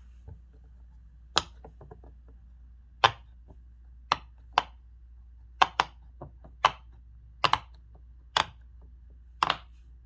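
Bubbles of a hexagon-shaped silicone push-pop fidget toy being pressed one after another, each giving a short sharp pop, about a dozen at uneven intervals.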